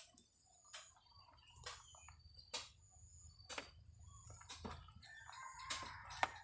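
Rooster crowing once in the background near the end. Short sharp clicks or knocks come about once a second throughout.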